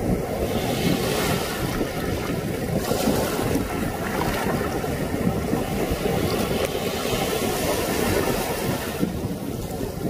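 Shallow surf washing in over wet sand and lapping against shoreline rocks: a steady rushing that swells a few times. Wind rumbles on the microphone under it.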